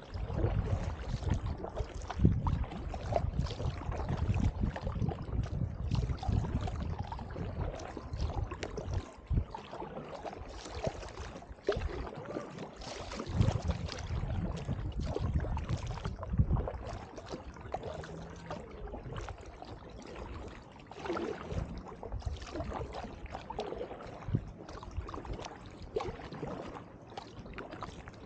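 Double-bladed paddle working the water beside an inflatable drop-stitch kayak: irregular splashes and drips as the blades dip in turn, with water washing along the hull. A low rumble lies under the splashes and is heaviest in roughly the first ten seconds.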